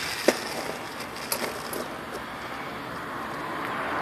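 Small stainless steel number 10 screws clicking and jingling in a plastic bag as it is opened and handled, with a sharp click near the start and a few lighter ones about a second and a half in, over a steady hiss that grows slightly louder toward the end.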